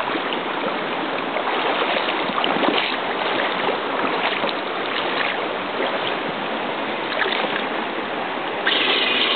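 Creek water rushing steadily around the submerged RC truck. Near the end a high mechanical whine suddenly starts up, typical of the truck's electric motor and gears running again as it comes up out of the water.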